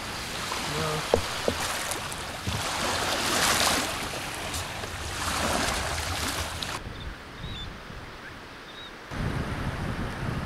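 Small waves washing onto the shore, with two louder washes in the first half. Near the end, wind rumbling on the microphone.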